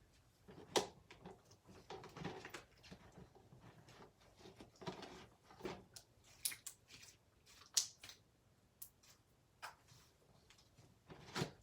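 Thick homemade glue slime being stretched and squished by hand, giving irregular soft squelches and sticky clicks, with a sharper pop about a second in and another near the end.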